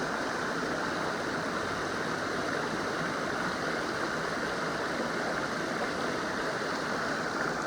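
Water of a small creek running steadily over a little waterfall, an even, unbroken splashing hiss.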